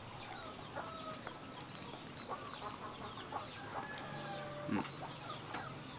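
Faint, scattered short animal calls, a few every second, with no one clear call standing out.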